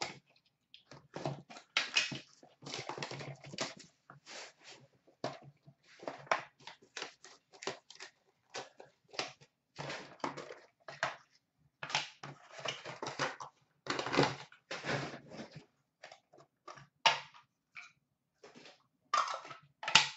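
A cardboard hobby box of hockey trading cards being opened and a foil card pack ripped and crinkled, with cards and wrapper handled, in quick irregular crackles and rustles.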